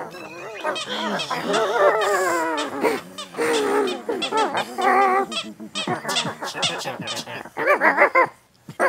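A warbling, creature-like comic voice drawing out the words 'I love... basting...' in a string of wobbling, strained calls with short breaks, loudest near the end.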